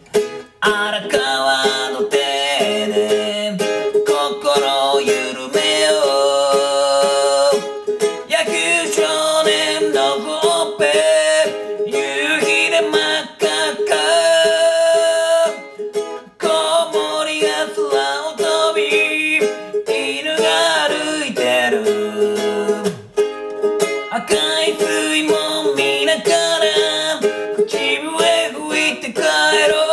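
A man singing in Japanese while strumming a ukulele.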